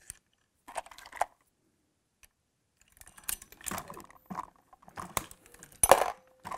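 Hornady Lock-N-Load AP progressive reloading press being cycled: bursts of metallic clicking and clinking, one short burst about a second in, then a run of clicks and clinks from about three seconds on, the sharpest near the end.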